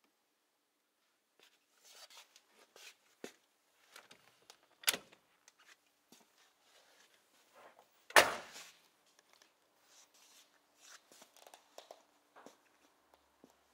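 Scattered light clicks and knocks of handling, with a sharp knock about five seconds in and a heavier thump about eight seconds in.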